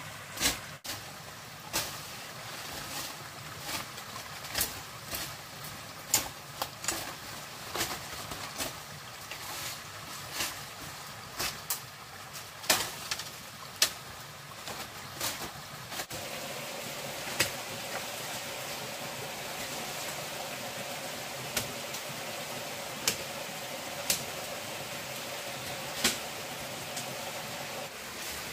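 Irregular sharp knocks and clacks, a few to several seconds apart, over the steady rush of a small stream. From a little past halfway a steady hum joins in.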